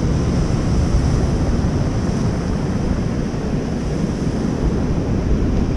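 Ocean surf and wind blowing across the microphone, a steady deep rush.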